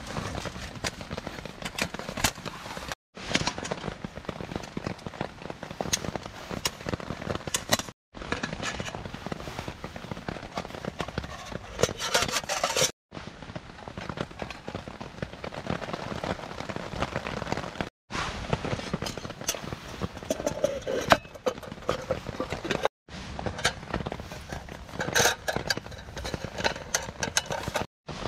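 Rain pattering on a tarp overhead as a dense, irregular ticking, with a few louder clinks of metal cookware as a Trangia kettle is nested into a cooking pot.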